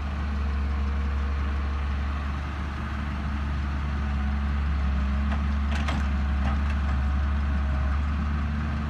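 Farm tractor's diesel engine running steadily with a deep drone as it pulls a soil-laden trolley. A few sharp clicks come about five to six seconds in.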